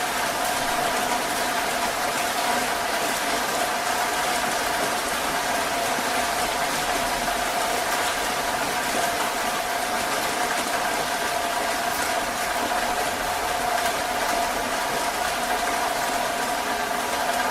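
Heavy rain falling steadily, a dense, even hiss, with a faint steady hum running underneath.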